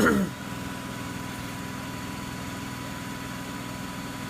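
Miele W Classic WDA110 front-loading washing machine spinning, a steady even motor hum. A brief louder falling sound comes right at the start.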